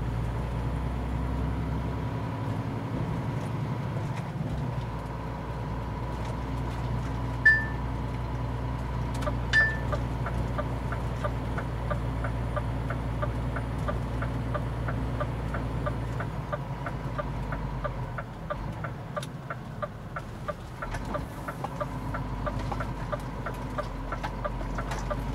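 Truck engine running steadily, heard from inside the cab. Two short high beeps sound about two seconds apart, then a fast even ticking, about three ticks a second, runs on from there: the turn-signal relay.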